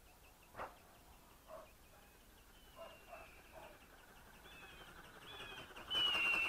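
Short bird-like chirps and calls repeating every second or so, then a much louder burst near the end carrying a high tone that slides slightly down.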